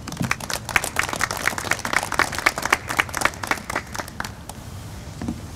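Audience applauding, the claps thinning out and stopping about four and a half seconds in.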